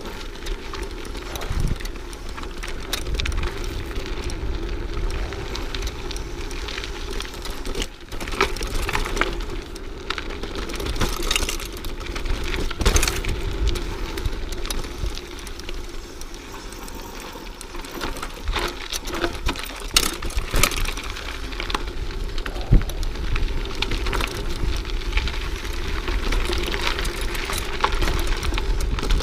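Mountain bike riding over a dry dirt singletrack: a steady rumble of tyres on the trail, broken by frequent sharp rattles and clacks from the bike jolting over bumps.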